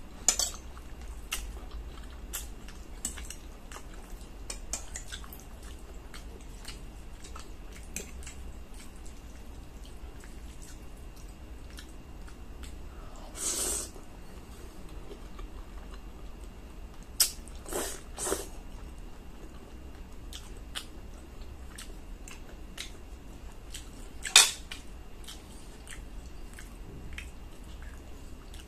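Close-up eating sounds: a metal fork clicking and scraping on a plate while spaghetti is twirled, with soft chewing between. A short, louder slurp of noodles comes about halfway through, and a few sharper clinks of cutlery come later.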